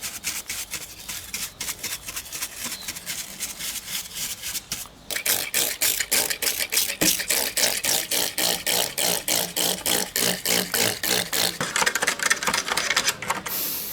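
Rapid back-and-forth scrubbing on a diecast model car, about five scratchy strokes a second, growing louder about five seconds in.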